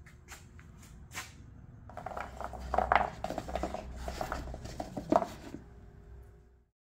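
Wine corks tumbling out of a bowl onto a hard wooden surface, a dense patter of light knocks and clatter lasting a few seconds. A few single clicks come before it.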